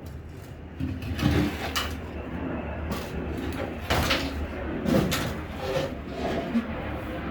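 Car seat parts being handled and set down: a series of irregular knocks, clatters and rustles, over a steady low hum.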